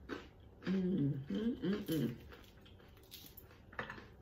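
A woman eating: short lip-smacking and chewing clicks, and about a second in a closed-mouth 'mmm' hum that wavers up and down in pitch for about a second and a half.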